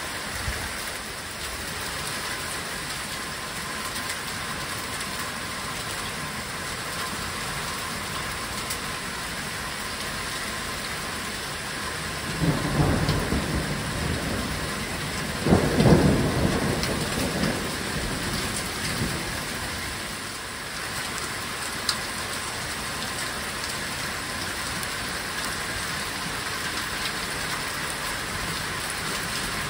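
Heavy rain pouring down steadily. About twelve seconds in, thunder rumbles, swells to a louder peak a few seconds later, and rolls away by about twenty seconds.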